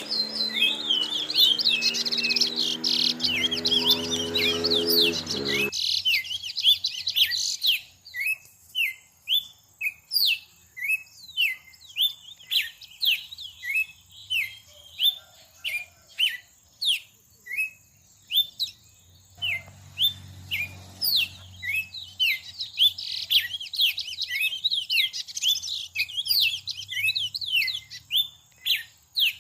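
A songbird calling: a long run of short, sharp chirps, about one to two a second. For the first several seconds the chirping is denser and busier, over a steady low hum.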